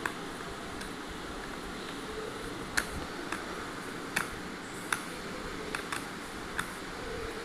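A run of sharp, separate clicks and snaps, about seven over four seconds starting a few seconds in, from tools and small plastic parts as a Bluetooth speaker is taken apart, over a steady hiss.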